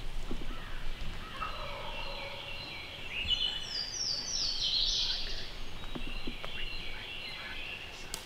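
Wild turkey gobbling: a rapid rattling run of notes starting about a second in and loudest around the middle.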